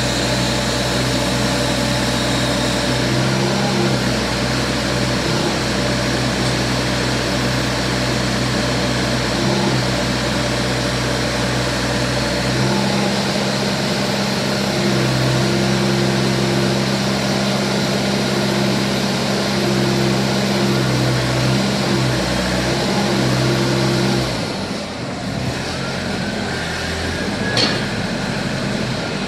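CAT TH83 telehandler's four-cylinder CAT diesel engine running steadily while the boom is worked, its note stepping up and down a few times. About 24 seconds in the engine note drops away to a quieter hum, and a single sharp click comes near the end.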